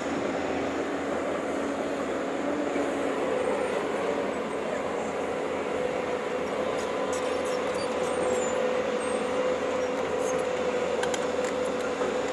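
Heavy construction machinery running steadily, with a steady whine held through the second half.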